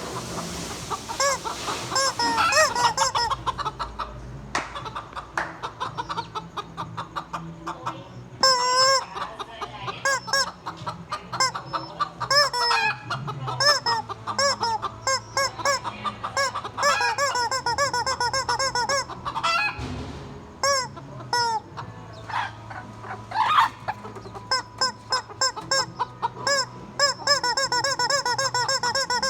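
Chickens clucking, a dense run of short repeated calls with a few louder, sharper calls here and there.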